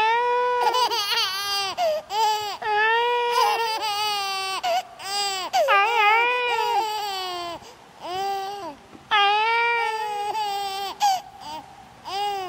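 Baby crying in a long run of drawn-out, high-pitched, wavering wails with short breaks between them.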